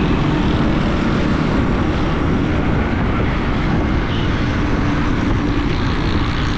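A motorcycle ridden at speed, with wind rushing over the microphone and the engine running underneath, steady throughout.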